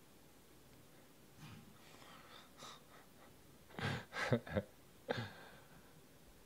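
A man's soft breathy laughter: faint breaths, then a quick run of chuckles about four seconds in and one more a second later.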